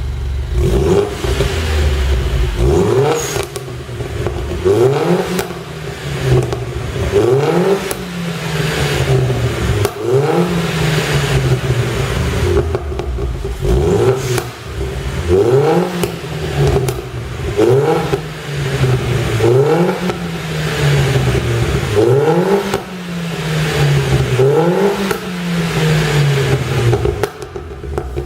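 Mini Cooper S John Cooper Works (R56) turbocharged four-cylinder engine revved up and let fall about a dozen times in a steady rhythm. Each fall in revs brings popping and crackling from the exhaust, the overrun pops of a pop-and-bang tune.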